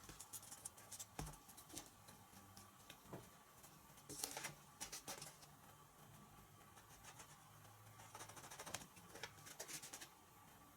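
Faint clicks and rustling of small plastic and foam model-plane parts being handled during assembly, with brief busier spells of handling about four seconds in and again near the end.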